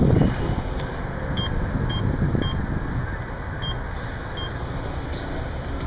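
Gas pump keypad beeping as buttons are pressed to enter a card PIN: five short high beeps, over a steady low rumble.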